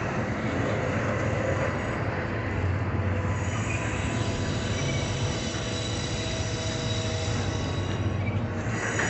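Double-stack intermodal freight cars rolling past: a steady low rumble of wheels on rail, with thin steady wheel squeal that comes in about three seconds in.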